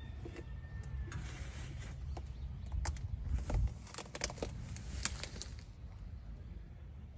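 Crackling and rustling steps through tall dry grass, clustered in the middle, over a low wind rumble on the microphone.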